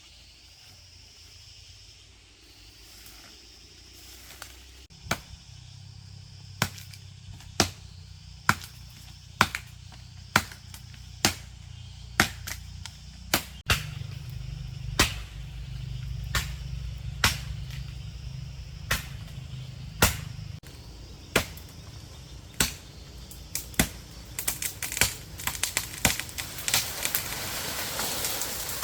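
Sharp strikes repeated roughly once a second, coming faster and closer together near the end, over a low steady hum.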